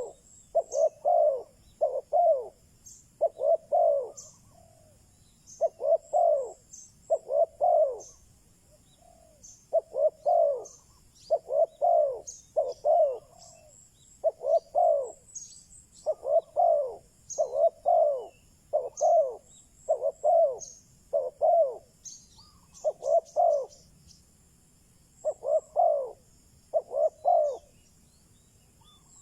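Decoy spotted dove cooing over and over in short phrases of two to four notes, a phrase every couple of seconds. Faint chirps from small birds sound in the background.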